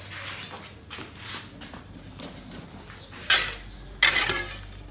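Metal cookware clanks twice, sharp and briefly ringing, about three and four seconds in, as metal vessels are handled at a gas stove. A low steady hum from the lit gas burner starts with the first clank.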